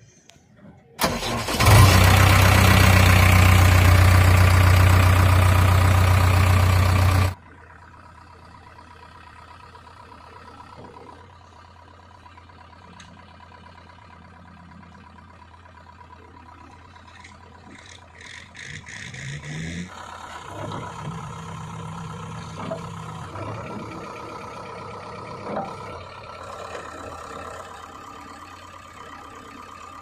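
JCB 3DX backhoe loader's diesel engine starting up, heard loud and close from the cab for several seconds before it cuts off suddenly. The engine then runs more faintly at a steady idle, its revs rising and staying up from about two-thirds of the way through.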